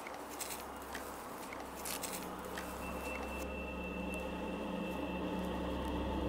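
Footsteps crunching in dry grass, a few scattered steps, over a low steady hum that thickens and grows slowly louder after about two seconds.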